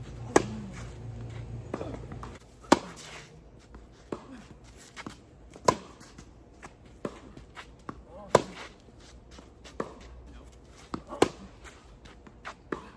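Tennis rally on a clay court: five loud racket-on-ball strikes from the nearby player, about three seconds apart, with fainter pops between them from the ball bouncing and the far player's strokes. A low steady hum underneath stops about two and a half seconds in.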